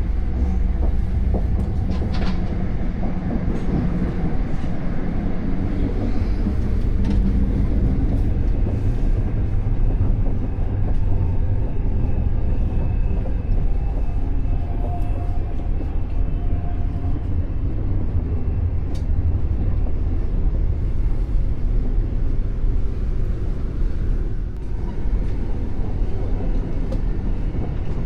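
Passenger train running along the line, heard from inside the carriage: a steady low rumble with a few brief clicks.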